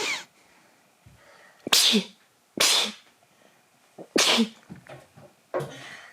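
A person sneezing, three loud sharp sneezes about a second or so apart and a smaller one near the end.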